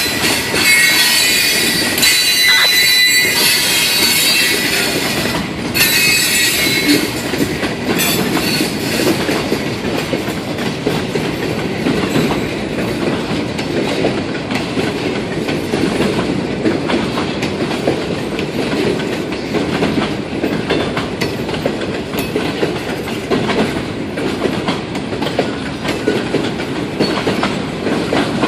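Freight cars (tank cars, then centerbeam flatcars) rolling past on the rails. High-pitched wheel squeal sounds for about the first eight seconds, then fades into a steady rolling rumble of wheels on rail.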